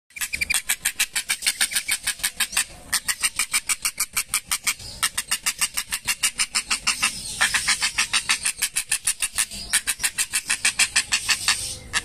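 Purple heron calling in a rapid, even chatter of harsh notes, about six or seven a second, in runs broken by short pauses. Its wings are spread and its bill open, the begging display of a young heron.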